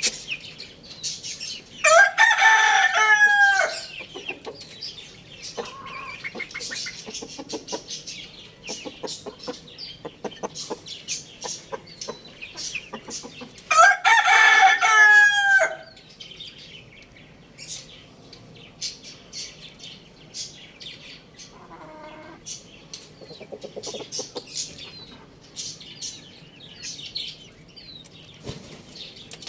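Rooster crowing twice, about twelve seconds apart, each crow about two seconds long and by far the loudest sound. Between the crows come faint short calls and small clicks.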